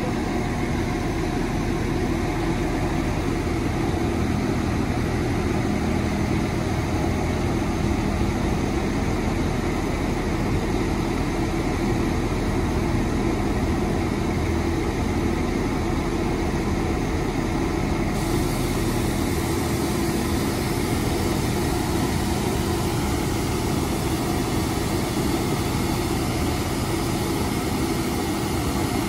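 A Class 195 diesel multiple unit standing at the platform with its diesel engines idling, a steady hum. A high hiss joins in about two thirds of the way through.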